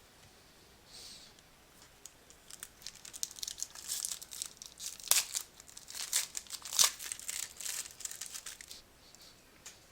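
A trading-card pack wrapper being torn open and crinkled, a burst of dense crackling that starts about two and a half seconds in and runs for about six seconds, with sharp loud crackles near the middle.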